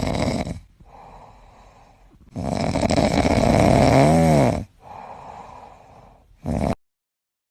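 A sleeping animal snoring loudly, with two long snores and quieter breaths between them. The second snore carries a short rising-and-falling pitched note. A brief snort follows, then the sound cuts off abruptly near the end.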